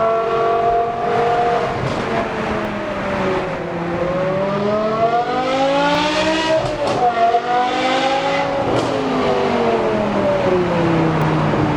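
BMW M5 E60's V10 running through a Kreissieg valvetronic exhaust, the engine note rising and falling as it is driven: it climbs for a couple of seconds, drops sharply about seven seconds in as a gear changes, climbs again, then falls back and settles to a steady drone.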